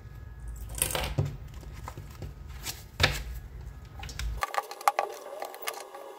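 Handling noise: a few sharp rustles of a paper sheet being slid off a cutting mat. About four and a half seconds in, the background drops away and a run of small clicks follows as a multimeter and bench power supply are handled.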